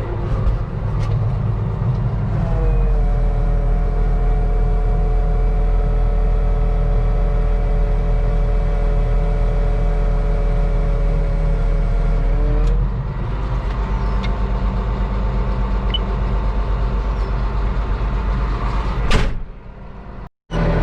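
Farm tractor engine running steadily. For about ten seconds in the middle a steady whine sits over the engine's hum, and the low rumble grows heavier. A sharp knock comes near the end, and then the sound drops out briefly.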